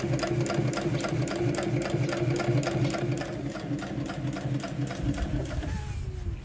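Sewing machine stitching the torn bimini canvas to patch it, in a steady run of rapid stitches that stops about five and a half seconds in.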